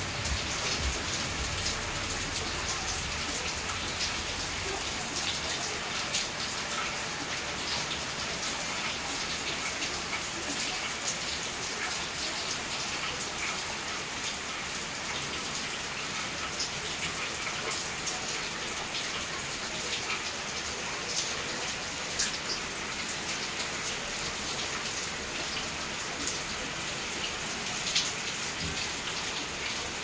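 Steady rain: an even hiss of falling rain, with many small sharp ticks of single drops striking close by.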